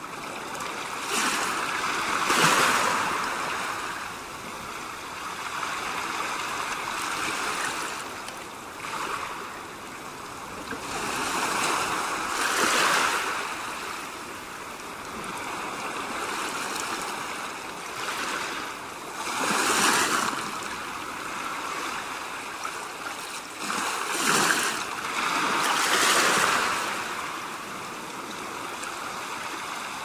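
Ocean surf: waves breaking and washing back, the rush swelling up and falling away every few seconds.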